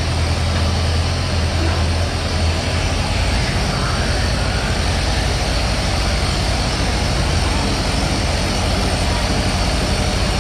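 Tractor engine running under load, pulling a weighted sled in a tractor pull. Its strong low steady note drops away about three seconds in, while the loud mechanical noise carries on.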